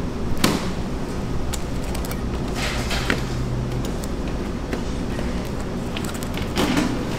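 Steady low hum of a bakery kitchen, with a few light knocks and rustles as baked bagels are handled in a tray.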